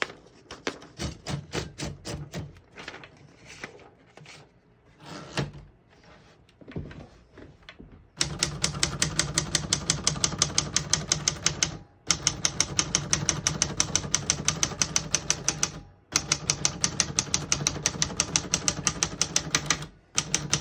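Keys of a 1967 Smith-Corona Corsair portable typewriter being typed: scattered key strikes at first, then from about eight seconds in a fast, even run of typebar strikes, about four a second, broken by two or three short pauses.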